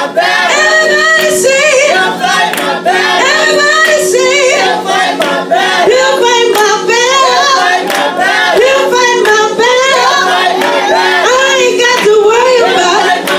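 Loud gospel singing: a woman's voice leads through a microphone while a group sings along and hands clap.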